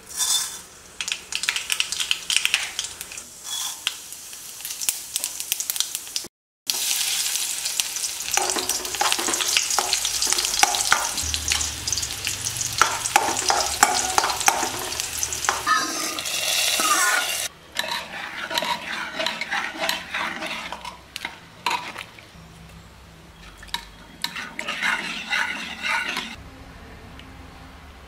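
Mustard seeds spluttering and popping in hot coconut oil in an aluminium kadai, then a dense, louder sizzle as dry red chillies and other tempering go into the oil. A steel spoon stirs and scrapes the pan, and the frying dies down to a lighter crackle near the end.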